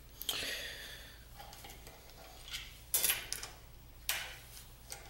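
Short metallic clinks and rattles of a hex key working the steel socket head screws on a milling machine's leadscrew mount. There are four sharp clinks, the loudest about three seconds in.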